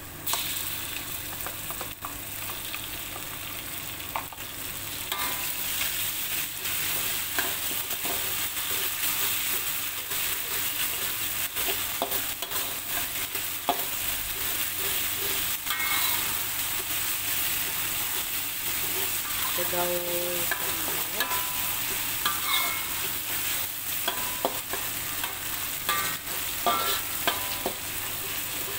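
Pounded shallots, garlic and curry sizzling in hot oil in a steel wok, with a metal spatula scraping and tapping against the pan as it is stirred. The sizzle jumps up at the very start as the curry goes in, then keeps on steadily.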